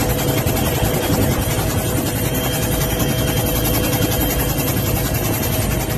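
Helicopter engine and rotor noise heard from inside the cabin: a loud, steady drone with a few constant tones running through it.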